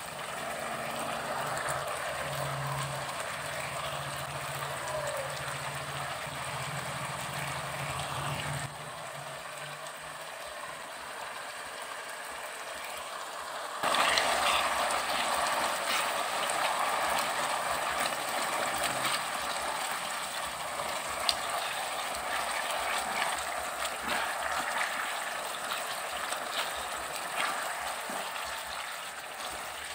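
Spaghetti frying in oil and sauce in a nonstick wok, tossed with silicone tongs: a steady sizzle with small clicks and scrapes of the tongs against the pan. It gets louder about halfway through.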